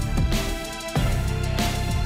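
Background music with a steady drum beat under held chords.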